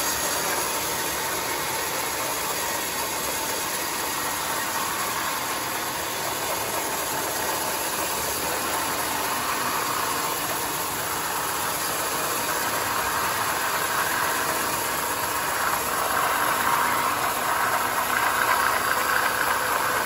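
Homemade band sawmill cutting a large mahogany log into a plank: a steady noisy hiss of the blade running through the wood over the machine's drive, getting louder over the last few seconds.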